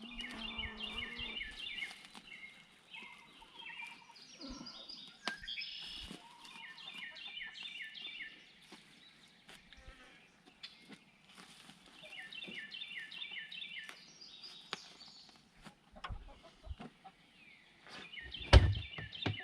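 A songbird singing phrases of quick, repeated chirping notes, the phrase coming again every few seconds; a few knocks near the end.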